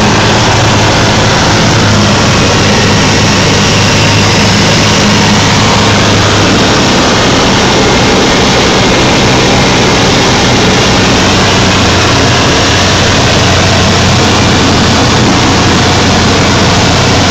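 Engine and propeller of a Pelican light aircraft running steadily at power, a loud, even drone with a low hum under a thick rush of noise; about six and a half seconds in the engine note shifts slightly and then holds steady again.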